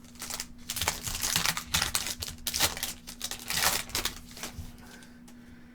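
Trading cards being handled and flicked past one another, a run of crisp rustles and flicks that dies away near the end. A faint steady hum runs underneath.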